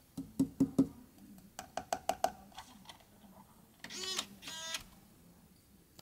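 A hand tapping the aluminium shell of a Mini-ITX PC case: a quick run of sharp taps in the first second, lighter taps around two seconds in, then two short squeaky sounds about four seconds in.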